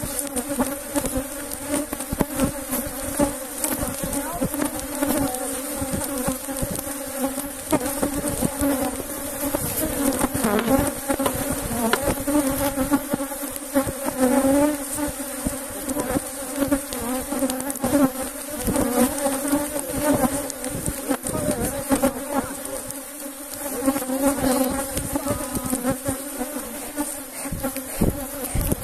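Honey bees from a defensive colony buzzing loudly around an opened hive: a dense, steady hum with single bees zipping close past and their pitch swinging up and down, over frequent brief knocks and bumps.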